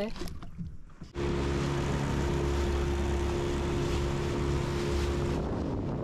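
Motorboat engine running steadily under way, a steady hum with wind and rushing water from the wake; it starts suddenly about a second in.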